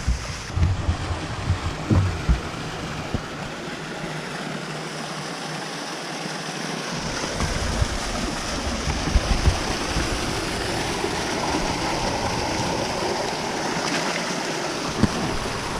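Steady rushing of water and wind around a fishing boat, with a few low knocks in the first couple of seconds, getting a little louder about halfway through.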